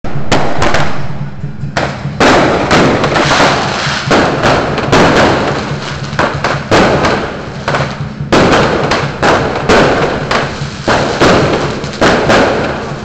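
Strings of firecrackers going off in dense crackling surges, a new burst every second or two, over a steady low hum.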